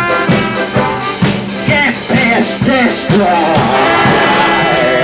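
Background song with a steady drum beat about twice a second and a singing voice, which holds a long note in the second half.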